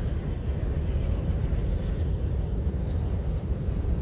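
Freight train of hopper cars rolling across a steel girder bridge: a steady, deep rumble of wheels on the rails.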